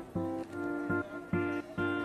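Background music of short, evenly spaced plucked-string chords, about two a second.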